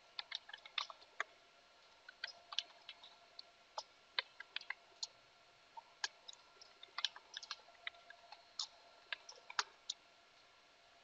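Computer keyboard typing: quiet, sharp key clicks coming irregularly in short runs.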